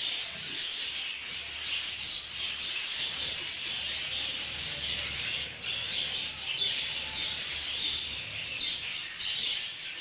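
A flock of budgerigars chattering steadily while feeding, a dense high-pitched twittering without a break.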